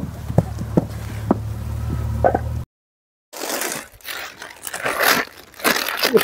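Hand-moulding of a mud brick in a wooden mould: several short knocks and thuds of clay and mould over a steady low hum. After a brief cut to silence, rustling and scraping handling noise from the camera being carried.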